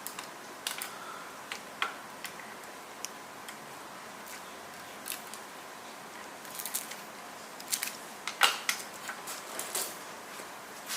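Scattered light clicks and ticks of scooter wiring and plastic parts being handled at the handlebar, over a faint steady hiss. The sharpest click comes about eight and a half seconds in.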